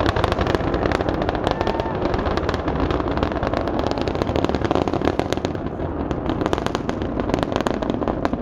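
Space Shuttle Atlantis's rocket roar during ascent, heard from afar: a continuous low rumble laced with rapid, irregular crackling from the solid rocket boosters, easing slightly in the second half.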